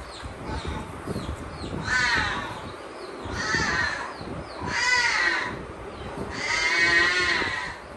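Newborn lion cub crying: four loud, wavering mewing calls, each about a second long, rising and then falling in pitch. The last call is the longest.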